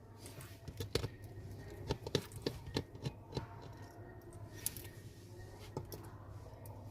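Faint, irregular small clicks and taps, about a dozen, from a precision screwdriver and small screws being removed from inside a Huawei Nova Y90 smartphone.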